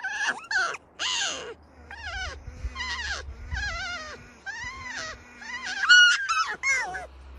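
A quick series of high-pitched squealing cries that rise and fall, some quavering, traded back and forth as two Alpine marmots face each other with open mouths. The loudest cry comes about six seconds in.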